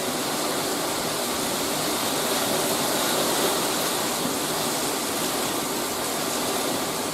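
Heavy thunderstorm rain pouring down, a steady even rushing hiss with no break.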